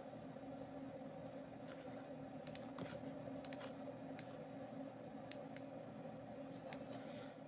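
Faint computer mouse clicks, about seven, several in quick pairs like double-clicks, over a steady low hum.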